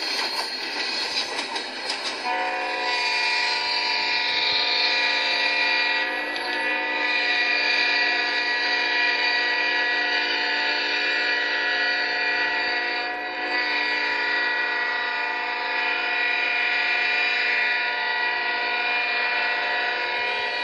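Multi-chime train horn sounding one long, unbroken blast, starting about two seconds in after a stretch of hiss and held at a steady chord.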